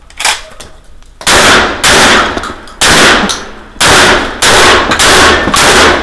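Stoeger M3K 12-gauge semi-automatic shotgun fired seven times in about four and a half seconds, starting about a second in. Each shot is a loud blast with a long echoing tail.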